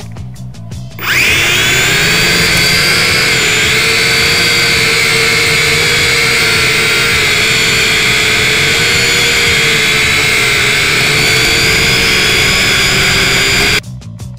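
Small quadcopter drone's propeller motors spinning up about a second in, then whining loudly and steadily as the drone lifts off and flies. The whine's pitch wavers slightly, and it cuts off suddenly near the end.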